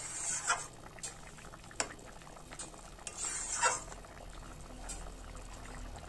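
Thick curry of taro, potatoes and prawns bubbling as it simmers in a metal kadai, with a spatula stirring and clicking against the pan a few times. Two louder stretches of bubbling and stirring come near the start and about three seconds in.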